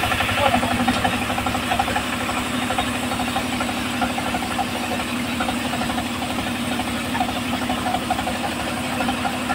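Stationary engine driving a homemade bandsaw mill, running steadily with the blade turning free between cuts; an even, rapid pulsing from the engine.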